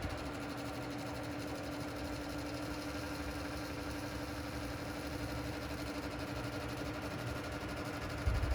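A steady mechanical hum with one constant mid-pitched tone over a low rumble, from a running motor.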